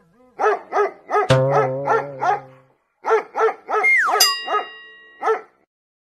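A dog barking in quick short barks, about three a second, with a short pause near the middle. Over the barks there are added effect tones: a sharp hit with a held tone about a second in, and a falling glide into held tones about four seconds in.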